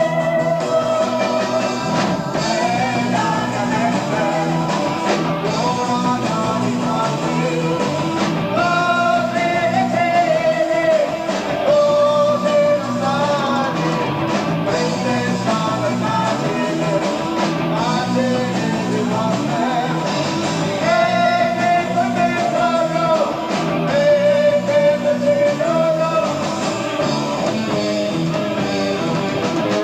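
Live progressive rock band playing, with a sung melody over the band, heard through an amateur tape recording of the concert.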